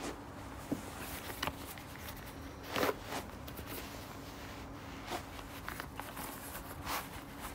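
Converse sneakers shifting on an artificial turf mat: scattered soft scuffs and footfalls of rubber soles, the loudest about three seconds in, over a steady low hum.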